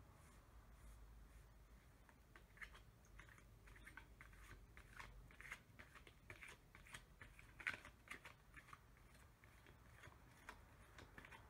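Faint hand shuffling of a deck of tarot cards: irregular soft clicks and slides of card stock against card.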